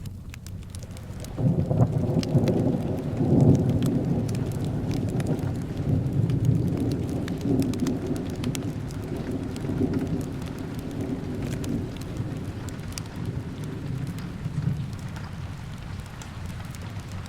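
A long rolling rumble of thunder comes in about a second and a half in, is loudest a couple of seconds later and slowly fades, over steady rain with a scatter of small sharp crackles from a fireplace.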